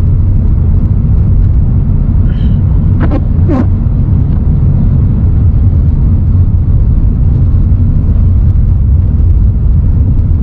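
A car driving on snow-covered roads, heard from inside the cabin: a steady low rumble of engine and tyre noise. Two brief squeaks come a little after three seconds in.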